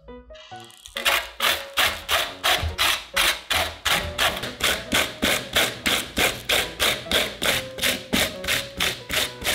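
Cabbage rubbed up and down a steel hand grater, a rasping stroke about three times a second, starting about a second in.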